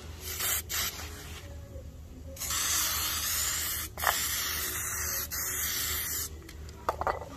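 Aerosol spray-paint can spraying, holding paint transferred into it from a can with a broken nozzle. There is a short hiss just after the start, then a long steady hiss of about four seconds through the middle with a brief break partway.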